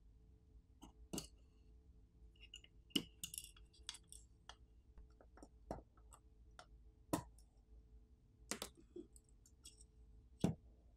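Faint, scattered clicks and small taps, about a dozen, from a pry tool working at a phone's camera assembly and flex-cable connectors while the small parts are handled, with a brief light scraping about three seconds in.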